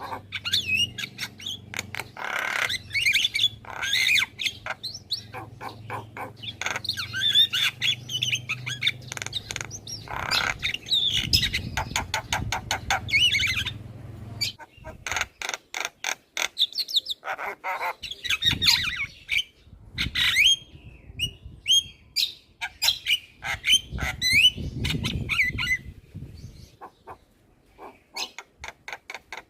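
Javan myna (jalak kebo) chattering on and on: a fast, varied run of clicks, rattles and whistled notes. A low hum lies under the first half.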